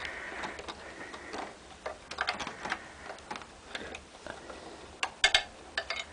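Irregular light clicks and rustling as a wire is handled and pushed up through a hole among the wiring under a pinball playfield, with a sharper cluster of clicks about five seconds in.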